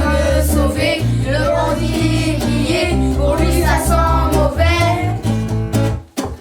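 Children singing a song in unison over a backing track with a pulsing bass line and plucked guitar; the music cuts out briefly near the end.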